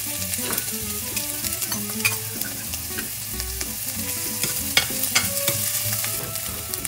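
Chopped red onion sizzling in hot olive oil in a stainless steel frying pan, stirred with a metal spoon that clicks and scrapes against the pan several times.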